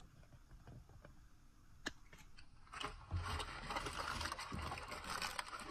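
Foil wrapper of a chocolate surprise egg crinkling and crackling as it is handled and torn off, starting about three seconds in and going on to the end. A few light plastic clicks and ticks come before it.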